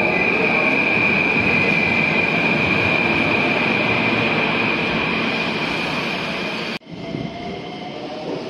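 Keikyu 1500-series electric train running past the platform, a steady high-pitched whine over the rumble of its wheels. About two-thirds through it cuts off suddenly, giving way to a quieter train rumble with a slowly rising motor whine.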